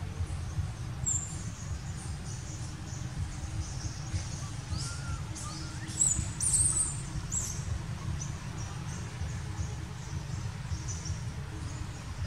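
Birds chirping in short, high calls, several in quick succession about halfway through, over a steady low outdoor rumble.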